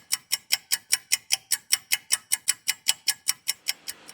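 Rapid, evenly spaced ticking, about five ticks a second, stopping near the end.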